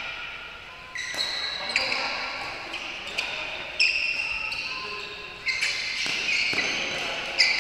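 Badminton rackets striking shuttlecocks in a large hall: a series of sharp hits, about seven spread unevenly over the seconds, each with a short high ring after it.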